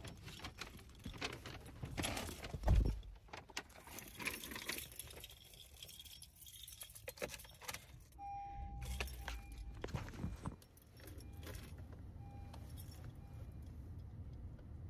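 Car keys jangling and rattling as someone gets into a car, with a heavy thump about three seconds in. Later a car's electronic chime sounds, one longer tone and then a few short beeps, over a low steady hum.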